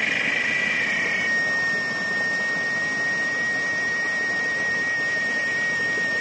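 Muddy rainwater runoff rushing and splashing over tree roots in a small cascade. Over it is a steady high-pitched whine, which narrows to a single pure tone about a second in.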